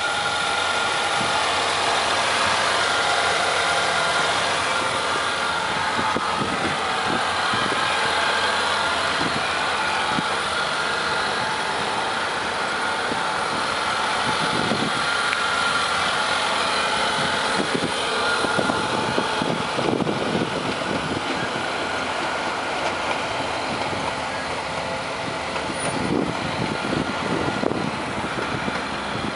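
Mercedes-Benz ML320's 3.2-litre V6 idling steadily.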